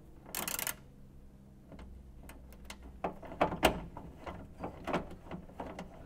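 A ratchet with a 10 mm socket clicking irregularly as a trunk latch mounting bolt is run back in loosely by hand, after a brief scrape about half a second in.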